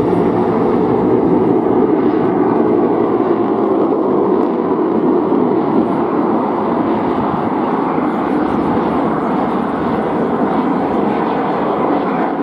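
Dassault-Dornier Alpha Jet's twin Larzac turbofan engines during a display flypast: a steady rushing jet noise that builds over the first second or so, then holds.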